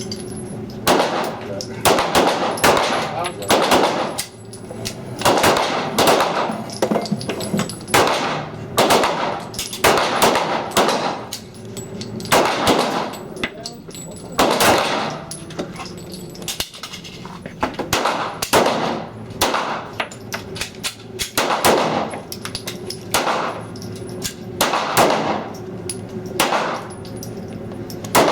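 Pistol gunfire from several shooters on a firing line, sharp irregular shots overlapping and following one another a fraction of a second to about a second apart.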